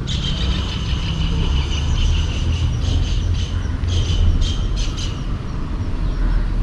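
A steady low rumble with a high, chirping insect call over it, pulsing on and off.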